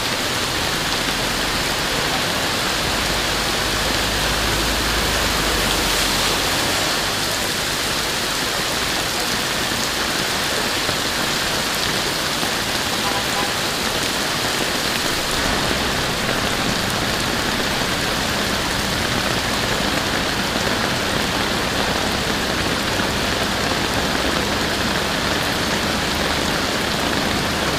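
Heavy rain pouring down in a steady, loud hiss, with a low rumble in the first few seconds.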